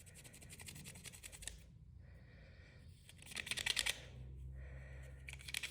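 Small screwdriver scrubbing a wad of steel wool down inside the back of a pocket knife's frame, rapid faint scratchy strokes with a louder spell of scraping about three and a half seconds in and again near the end, working rust, carbon and corrosion off the sides and bottom.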